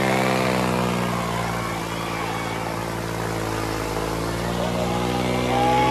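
Tractor diesel engines running hard under heavy load in a tractor tug-of-war, a steady loud drone whose note sags slightly in the middle and picks up again near the end.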